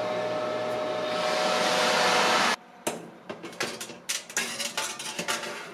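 Ninja Foodi XL Pro air fry oven's convection fan running steadily with a hum, cutting off suddenly about two and a half seconds in when the oven door is opened. Then a series of light metal knocks and clatter as the sheet pan and roasting tray are slid onto the wire rack.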